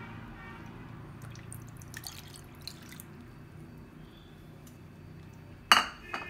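Water poured from a small bowl over raw fish fillets in a mixing bowl, splashing and dripping for a couple of seconds. Near the end comes one sharp clack, the loudest sound, followed by a lighter one.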